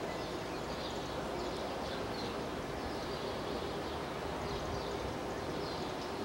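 Small birds chirping, short high calls every second or so, over a steady background hum of outdoor ambience.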